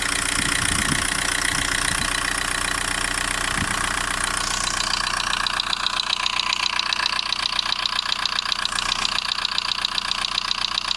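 Volkswagen Golf 1.9 TDI AHF four-cylinder turbodiesel engine idling, with a rapid, regular ticking or light knocking from the top of the engine that becomes more prominent about halfway through. The owner is unsure whether it is an injector or a lifter noise.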